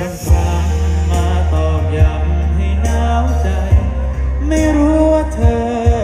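A live band playing through a PA with a voice singing, over a sustained bass line and a kick drum about every two seconds.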